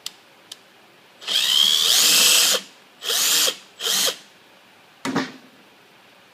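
Cordless Skil drill-driver running screws in, in four bursts: a long run with its whine climbing in pitch, two shorter runs, and a brief last one near the end. A couple of light clicks come just before the first run.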